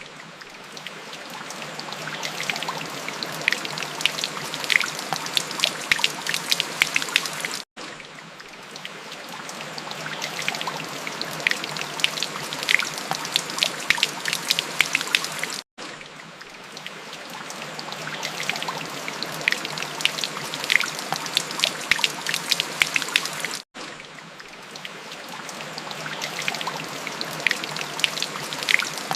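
Steady rain, with the patter of individual drops over a continuous hiss. The recording cuts out for an instant about every eight seconds and swells back in, as a loop.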